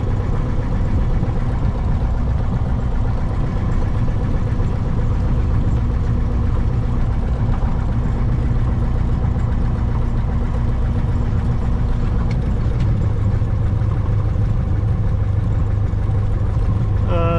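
Cessna 172's piston engine running at low taxi power, a steady drone heard from inside the cockpit as the propeller turns slowly.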